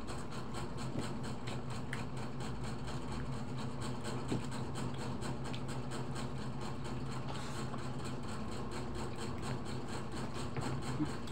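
A steady low mechanical hum, with a few faint clicks of hands and food on plates as people eat by hand.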